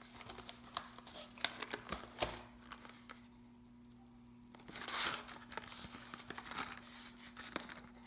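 Cardboard Skittles candy boxes handled by hand: a run of light taps and clicks over the first three seconds, then rustling and scraping of fingers against the boxes from about five seconds in.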